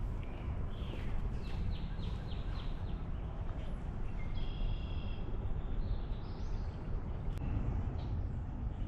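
Wild birds chirping: a quick run of short chirps about a second in, then a brief higher twittering call a few seconds later, over a steady low rumble.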